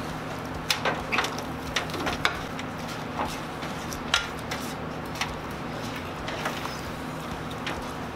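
Eating at a table: scattered short clicks and clinks of hands and food against galvanized metal serving trays, most of them in the first half, over a steady low hum.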